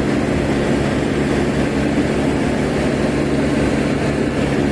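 Excavator's diesel engine running steadily at a fast, even low throb.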